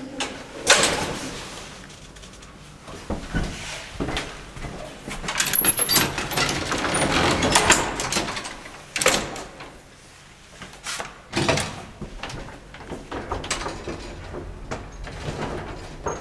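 Old Hansen & Bjørnerød traction elevator travelling: irregular clunks and knocks, with a longer rattling stretch around the middle and sharp knocks about nine and eleven seconds in.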